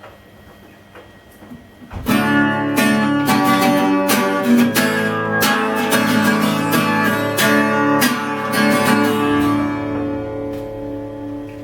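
Acoustic guitar strummed in chords, starting suddenly about two seconds in after a faint low hum, and easing off somewhat near the end.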